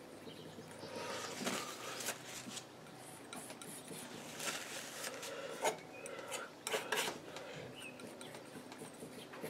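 Palette knife scraping and dragging oil paint across a painting board, several short rasping strokes.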